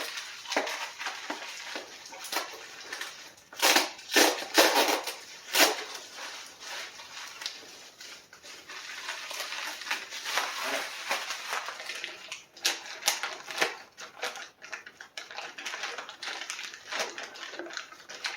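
Hands handling engine parts and their packaging: irregular rustling with knocks and clinks, busiest about four to six seconds in and again around ten to thirteen seconds.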